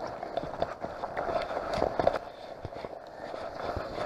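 Footsteps on an overgrown forest trail, with brush and branches swishing against clothing as someone walks. It comes as an irregular run of soft thuds and scrapes.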